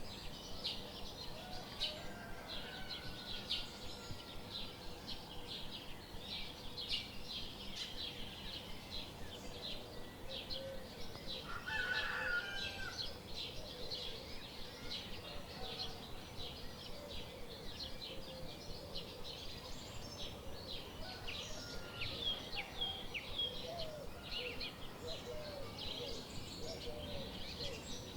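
Many small birds chirping continuously, with a louder chicken call about twelve seconds in.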